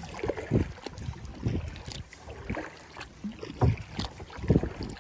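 Water slapping and splashing around an Eddyline Skylark sit-inside kayak paddled through choppy water, with wind buffeting the microphone in irregular low rushes.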